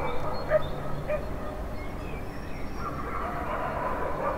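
Dogs barking irregularly, with birds chirping, over a steady low background rumble of a city.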